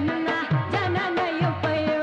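South Asian film-song music in the Bollywood style, with a steady drum beat whose low drum notes slide down in pitch under a melody line.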